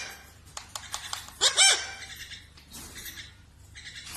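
Pet parrot calling: one loud, ringing call about a second and a half in, with softer squawks and small clicks around it.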